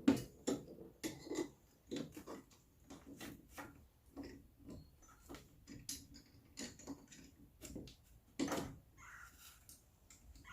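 Irregular metallic clicks and knocks of suspension hardware being handled: a bolt, washers and tools clinking while the lower coilover bolt is fitted. The two loudest knocks come right at the start and about eight and a half seconds in.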